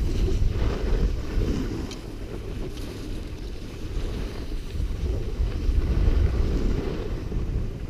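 Wind buffeting the microphone of a camera carried by a moving skier: a low, uneven rumble that swells and dips throughout.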